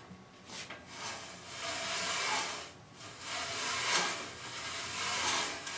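Chamfer cutter shaving the edge of a steel bicycle bottom bracket shell as it is turned with a wrench: a rasping metal scrape in long strokes, breaking off briefly near the middle.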